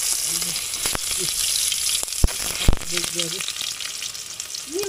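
Sliced onions sizzling in hot oil in a non-stick wok, a steady frying hiss. A couple of sharp knocks sound about two and a half seconds in.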